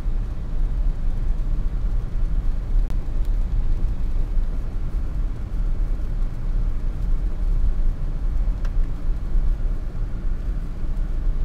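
Car driving, with a steady low road and engine rumble.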